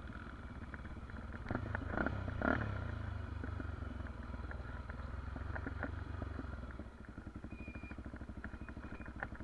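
Trail motorcycle engine running, its note rising about a second and a half in, with a couple of sharp knocks around two seconds in, then dropping back to a slow, even idle pulse near seven seconds.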